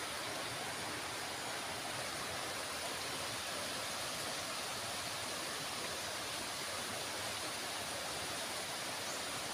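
A stream rushing steadily over rocks: an even hiss with no distinct events.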